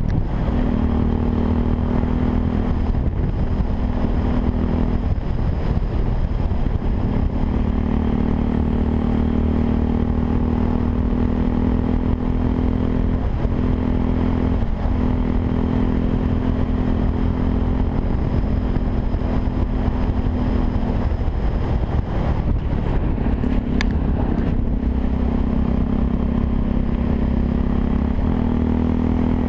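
Yamaha WR 125 R's single-cylinder four-stroke engine running through an aftermarket Takkoni exhaust, held at fairly steady revs with brief dips and changes in pitch several times. Wind rumbles on the microphone.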